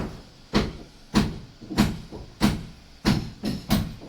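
Footsteps on the wooden planking inside a wooden fishing boat, about seven steps at a walking pace, coming a little quicker near the end.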